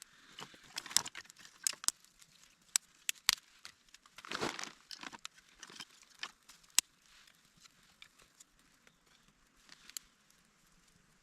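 Crinkling and rustling handling noises, broken by scattered sharp clicks and snaps, with a longer rustle about four seconds in.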